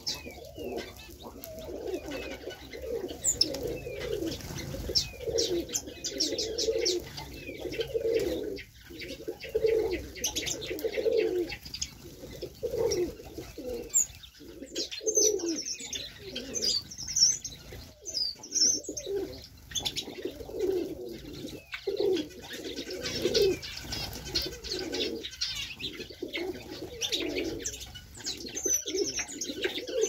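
Many pigeons and doves cooing over one another, the low coos repeating without a break, with small finches chirping high above them.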